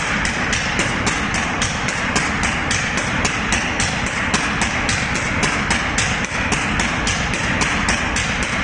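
Common rail diesel injector test bench firing four injectors at 1300 bar. Sharp injection ticks come about four times a second over a steady hiss of fuel spraying into the measuring cylinders and the run of the bench's high-pressure pump drive.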